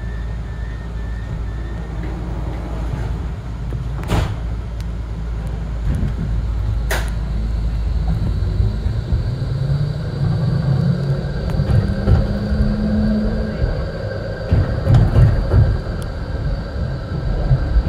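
Melbourne E-class tram heard from inside as it pulls away: a steady low hum with a few short high pips at the start and two sharp clicks. The traction motors then whine up in pitch as the tram accelerates, followed by rumbling and knocking from the wheels on the track.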